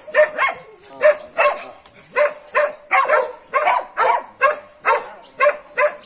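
Dog barking over and over in a steady run of short barks, about two to three a second.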